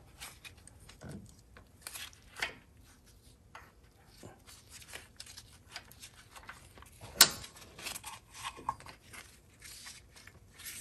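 Faint scattered clicks, rubs and rustles of hands taking a pulley and the timing belt off a Honda 3.5 L V6 engine, with one sharper click about seven seconds in.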